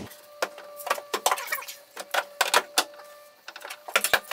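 Bike-rack mounting bar being pulled back out through the racks' tubes, rattling in a run of irregular clicks and knocks.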